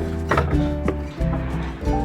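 Background music with held notes over a low bass.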